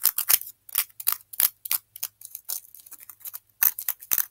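A hand tool scraping shavings off a dusty blue stick in quick, uneven strokes, about three a second.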